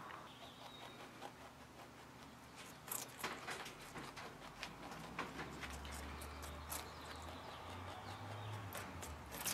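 A rabbit gnawing and crunching a raw sunchoke (Jerusalem artichoke) tuber: faint, irregular crunchy clicks that begin a few seconds in. A low hum runs under the second half.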